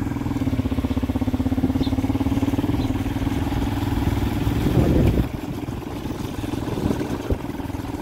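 Small motorcycle engine running steadily at low road speed. About five seconds in its note drops away as the rider eases off the throttle.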